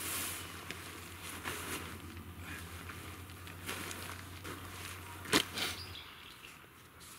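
Fabric rustling and crinkling as a rolled-up tent bundle is pressed flat and its straps are handled, with one sharp click about five seconds in. A steady low hum runs underneath and stops about six seconds in.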